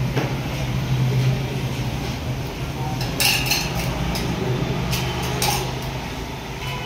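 A metal spoon clinking against a steel mug of egg mixture, a few sharp ringing clinks: a cluster about three seconds in, two more around five seconds, and one at the end. A steady low hum runs underneath.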